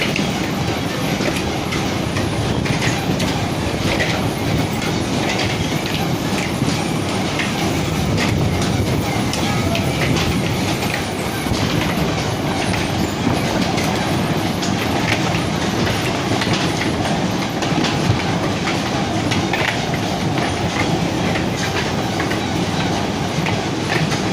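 Steady mechanical rumble with a continuous clatter of small knocks and rattles.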